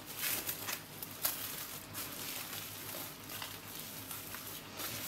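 Plastic cling film crinkling and crackling in irregular small rustles as hands roll a film-wrapped raw chicken log and twist its ends.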